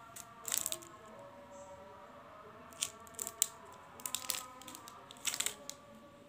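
Cellophane lollipop wrappers crinkling in five short bursts as wrapped lollipops are handled and set down. Faint background music with held notes runs underneath.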